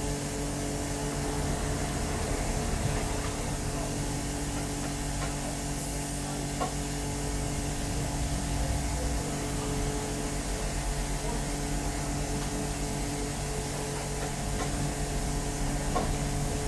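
Mobile fruit press running: a steady machine hum from the electric motors of the apple elevator, mill and press, holding several steady low tones, with a few faint clicks.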